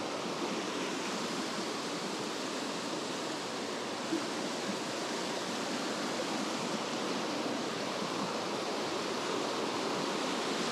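Mountain stream water rushing steadily through a rocky gorge, an even wash of water noise.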